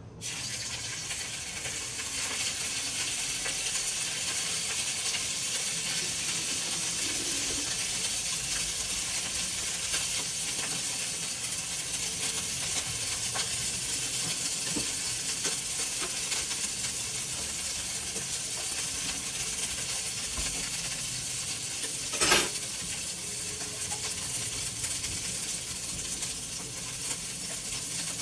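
Food sizzling in a hot frying pan, a steady crackling hiss, with one sharp clink of a utensil against the pan about 22 seconds in.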